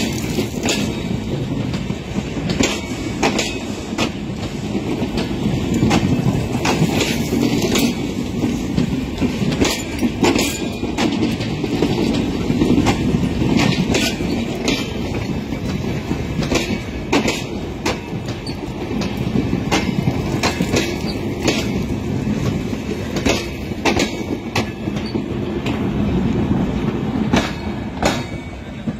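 Bangladesh Railway intercity passenger coaches rolling slowly past close by: a steady rumble of wheels on rail, broken by irregular sharp clacks as the wheels cross rail joints.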